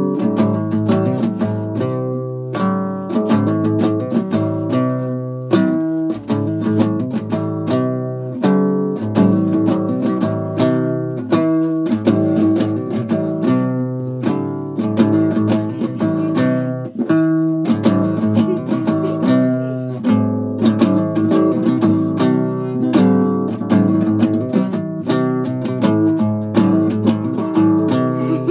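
Acoustic guitar playing a rhythmic groove, a steady run of plucked and strummed notes.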